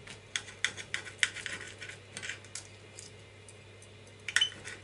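Knife and fork clicking and scraping against a plate while cutting a piece of pork loin. A run of quick clicks comes in the first couple of seconds, then two sharp clinks near the end, the loudest of all.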